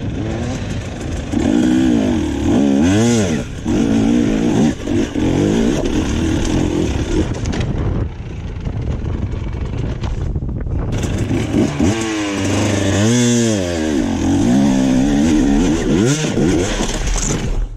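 KTM off-road dirt bike engine revving in hard bursts on a rocky climb, its pitch rising and falling with the throttle. For a few seconds midway, while the bike lies tipped on its side, the revs drop off before it revs up again.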